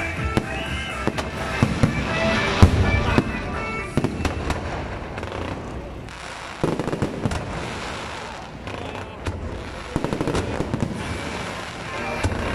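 Electronically fired aerial fireworks going off overhead: a rapid, dense string of bangs and crackling. It is heaviest in the first few seconds, thins out in the middle, and builds again near the end.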